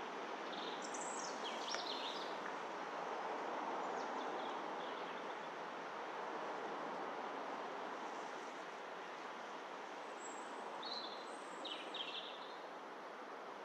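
Small birds chirping in two short bouts, about a second in and again near the end, over a steady outdoor background hiss.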